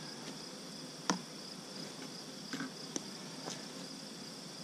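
Steady high chirring of crickets, with a few light clicks and taps about a second in and again around the middle.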